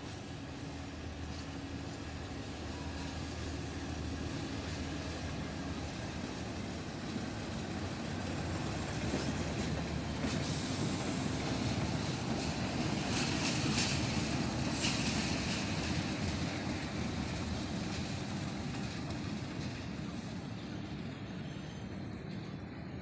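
A GE CC 201 diesel-electric locomotive and a Henschel BB 303 diesel-hydraulic locomotive, coupled together, pass by with their diesel engines running and wheels rumbling on the rails. The sound swells to a peak midway and then fades, with a brief high-pitched hiss about ten seconds in.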